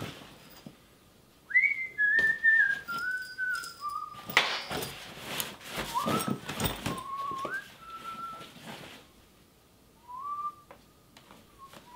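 A man whistling a slow tune in held notes that step up and down in pitch, in three phrases with pauses between them. Loud rustling and knocks of a nylon hockey bag being rummaged through come in between and under the whistling.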